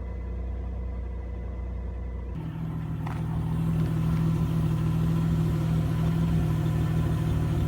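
1997 Chevrolet Camaro's 3800 V6 engine idling steadily, with a freshly replaced spark plug wire on cylinder 6 meant to cure a misfire. About two seconds in, the hum grows louder and higher.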